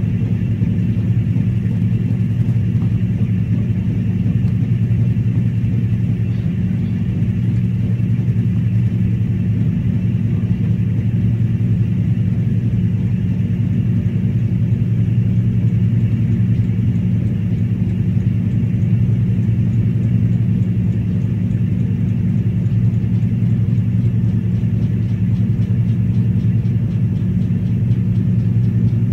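Steady low hum of a running electrical appliance, holding the same pitch and level with no breaks.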